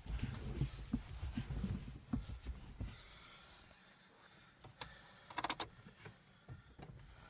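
Muffled knocks and low rumble of movement in a car cabin, then keys jangling and a quick cluster of clicks about five and a half seconds in: the ignition key being turned to on before a cold start of a Ford Escort 1.8 TDDI diesel, its engine not yet running.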